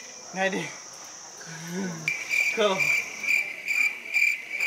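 Crickets chirping: a steady high trill, joined about two seconds in by a louder chirp pulsing about three times a second.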